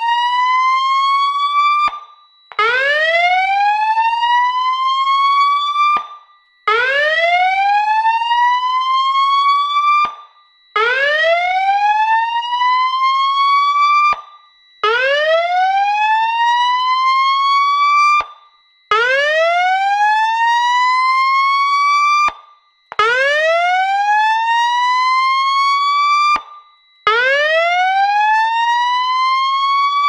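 Federal Signal 300GCX SelectTone speaker/siren sounding its whoop tone in fire alarm: long rising sweeps, each about three and a half seconds, repeating about every four seconds with a short break between, set off by the smoke detector's activation.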